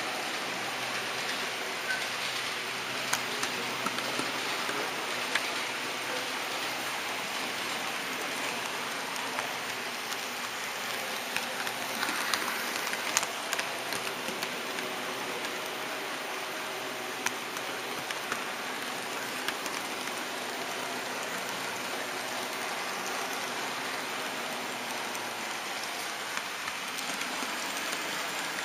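Model train running along the track, its wheels rolling on the rails in a steady rushing hiss, with irregular sharp clicks as it crosses rail joints and turnouts, and a faint motor hum underneath.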